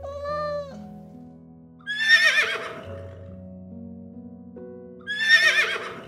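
A cat meows once, briefly, then a horse whinnies twice, about three seconds apart. Each whinny is a quavering call just under a second long, the two alike, over background music with held notes.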